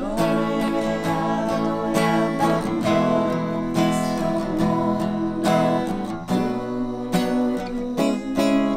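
Acoustic guitar playing strummed chords, with held pitched notes and regular strokes.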